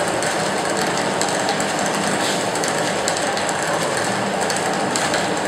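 Large automatic stir-fry cooking machine running, its stirring paddles turning in the pot with a steady mechanical clatter.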